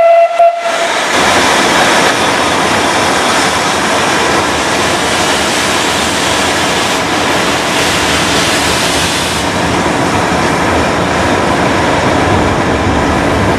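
GWR Hall class 4-6-0 steam locomotive 'Pitchford Hall' moving off slowly with its cylinder drain cocks open, giving a loud, steady rushing hiss of steam. A brief whistle sounds at the very start.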